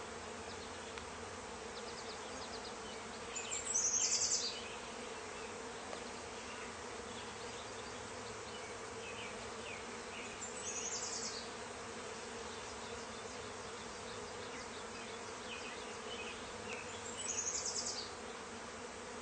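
Steady hum of a honeybee swarm clustering on a tree. A short, high, rapid trill sounds three times, about seven seconds apart, over the hum.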